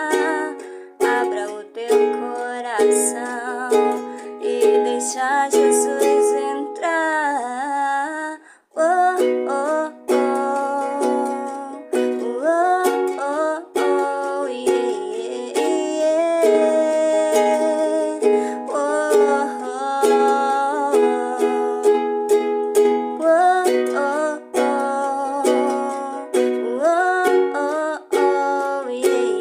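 Music: a Portuguese gospel song carries on without sung words, a melody over a plucked-string accompaniment.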